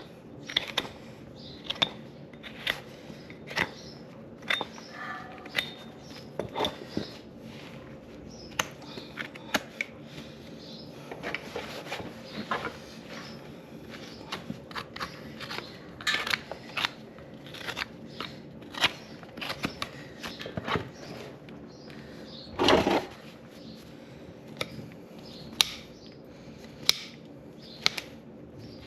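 A horse's hoof being trimmed with a farrier's cutting tools: irregular sharp snips and cracks as hoof horn is cut, with one louder crunch about three quarters of the way in, over a faint steady hum.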